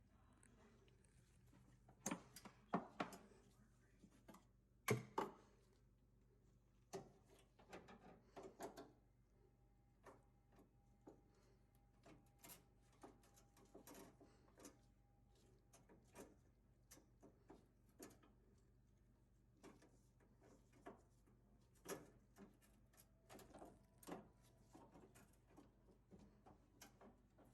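Near silence with scattered faint clicks and knocks of handling, over a low steady hum; a faint steady tone sounds for several seconds in the middle.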